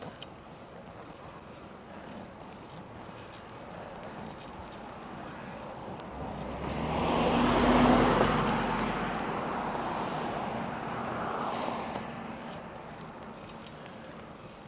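A motor vehicle passing close by: engine and tyre noise swell over a couple of seconds, peak about halfway through, and fade away. Underneath is a low steady hiss.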